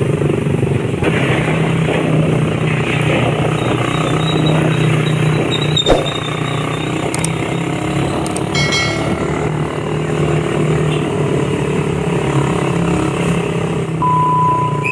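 Motorcycle engine running steadily, with one sharp click about six seconds in.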